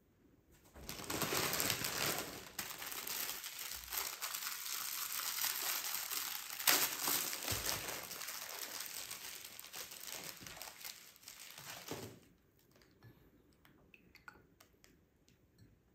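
Continuous crinkling and crackling, like something being crumpled or handled, lasting about eleven seconds before stopping suddenly, followed by a few faint clicks.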